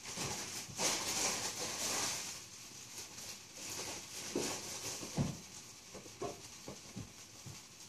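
Faint rustling, heaviest in the first couple of seconds, then a few light knocks spread over the rest: someone handling things nearby.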